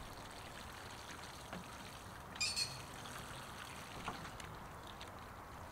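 Water pouring softly and steadily, with a brief high-pitched chirp about two and a half seconds in.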